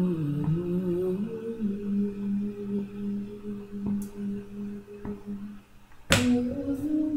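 Layered a cappella female vocals from a loop station: long held sung notes stacked in two parts, sustaining steadily. About six seconds in they drop away, a sharp burst of noise sounds, and a new pair of held notes comes in at a different pitch.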